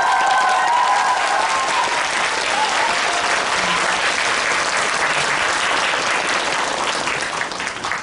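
Theatre audience applauding in a full house, a long steady round of clapping with a few voices over it in the first couple of seconds, easing slightly near the end.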